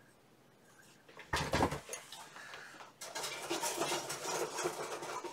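Plastic model-kit sprues and packaging being handled: a knock about a second and a half in, then a couple of seconds of rustling and clattering.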